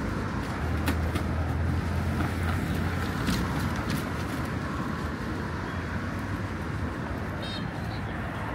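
Street traffic noise: the low rumble of a motor vehicle's engine going by over a steady city hum, fading after the first few seconds, with a few sharp clicks.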